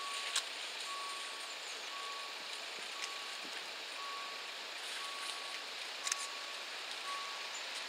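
Level-crossing warning beeper sounding a single steady tone about once a second, with a few sharp clicks: the warning that the crossing barriers are coming down for an approaching train.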